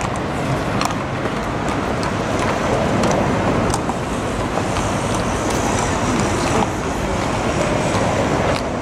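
Steady city street noise of road traffic, with faint clicks of horses' hooves walking on the paving.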